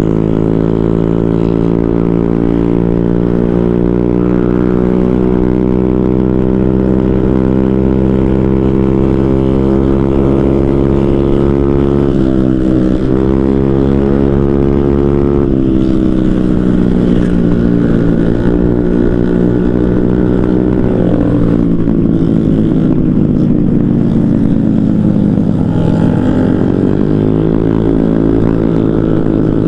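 Motorcycle engine running under way at a steady cruise, heard from the bike, its pitch drifting slowly up and down with the throttle. There is a brief dip about twelve seconds in, and a drop and then a rise in the last few seconds.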